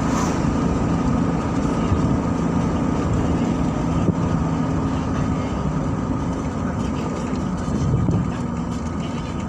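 Steady engine hum and road noise of a car driving along, heard from inside the cabin.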